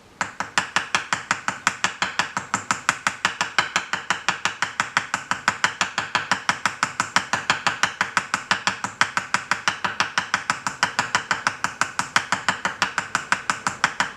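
Small ball peen end of a hammer tapping a 1 mm wire rivet lightly and quickly, about six even metallic taps a second, spreading the rivet end into a mushroom head.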